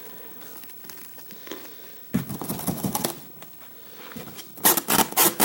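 Packaging being handled, rustling and crinkling in bursts: a short stretch about two seconds in and a louder, sharper flurry near the end.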